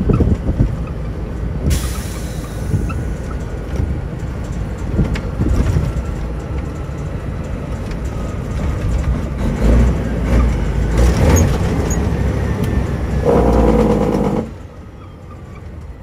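Heavy diesel semi-truck engine pulling hard under acceleration, a deep continuous rumble with a thin steady whine over it. The engine noise drops off sharply near the end.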